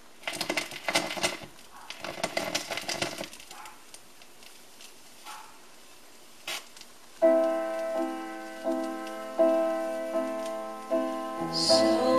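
A 45 rpm vinyl single playing on a Denon DP-23F direct-drive turntable. The first few seconds hold irregular noisy sounds, then a keyboard intro of sustained chords begins about seven seconds in, one chord struck roughly every second.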